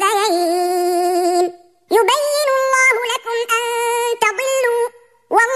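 A man chanting Qur'anic recitation in tajweed style, drawing out long held, melodic notes. One phrase ends early on, and after a short pause a second long phrase is sung, followed by another brief pause before the voice resumes at the very end.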